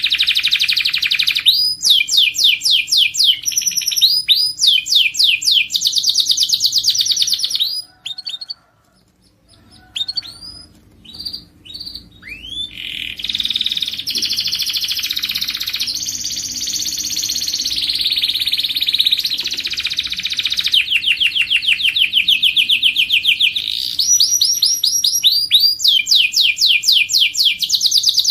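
Domestic canary singing: fast trills of quickly repeated high notes, switching from one trilled phrase to the next. The song breaks off for about two seconds around eight seconds in, then resumes with a few scattered notes before the trills build again.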